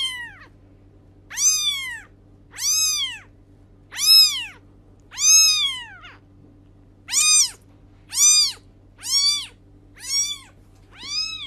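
Young kitten meowing over and over: about ten high-pitched meows, roughly a second apart, each rising and then falling in pitch.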